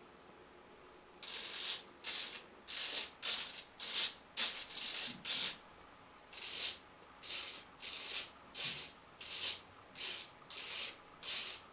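Servos of an RC model MiG-29 jet buzzing in a string of some twenty short bursts as the control surfaces and nozzles are moved, with a pause a little past the middle.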